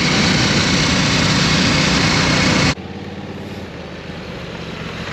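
Loud rushing noise that cuts off abruptly a little over halfway through, followed by an engine idling steadily at a lower level.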